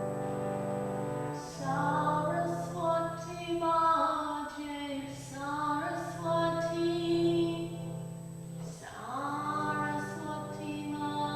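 A woman's voice singing a slow chant in long held notes over a sustained low drone, pausing briefly for breath twice.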